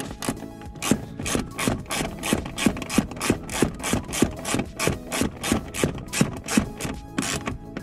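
Socket ratchet wrench worked back and forth in quick, even strokes, about three a second, clicking as it runs in a bolt.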